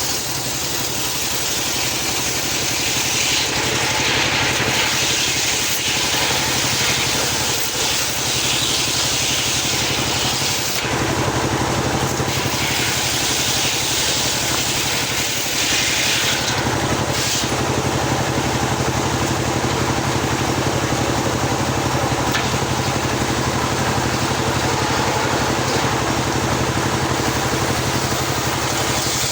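Homemade engine-driven circular sawmill running steadily while its blade rips lengthwise through a teak log. A steady low engine hum sits under a high cutting hiss that rises and falls several times as the blade works along the log.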